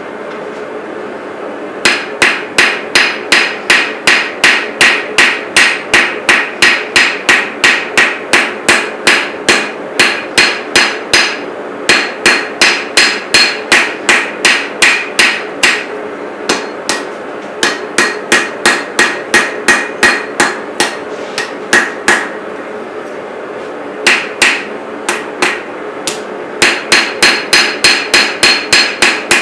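Hand hammer striking hot steel on an anvil while forging a knife blade: steady blows about two to three a second, each with a bright metallic ring, broken by a few short pauses. A steady drone runs underneath.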